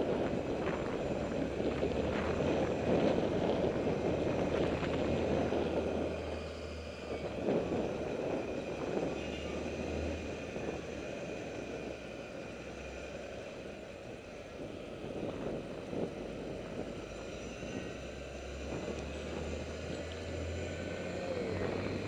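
Wind buffeting the microphone of a moving camera, with road rumble and occasional short knocks and rattles. It is loudest for the first six seconds, then settles to a steadier, quieter rush.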